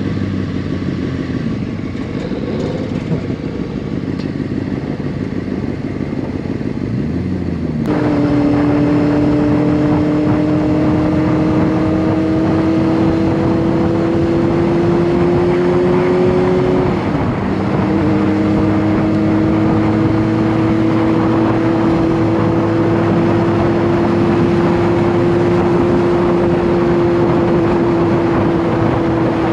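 Honda CBR600RR inline-four engine pulling at high revs while riding, a steady high-pitched note that climbs slowly, dips briefly about halfway through, then holds steady again. For the first several seconds the engine sound is lower and quieter before the high note comes in abruptly.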